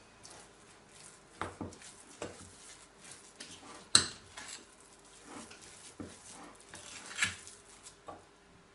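Metal spoon stirring a thick ground-hazelnut paste in a glass bowl: soft scraping with irregular clinks of spoon on glass, the sharpest clink about four seconds in and another near seven seconds.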